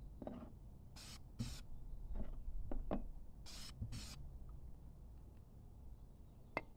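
Aerosol spray paint can giving short hisses in two pairs of quick bursts, one pair about a second in and another about three and a half seconds in. Light clicks and taps come between the bursts as the painted tins are handled.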